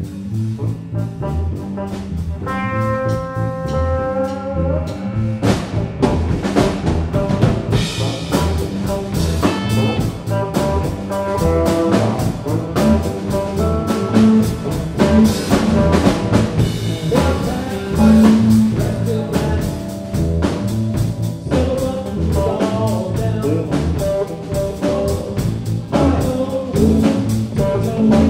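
Live band playing an instrumental passage on two electric guitars, electric bass and drum kit.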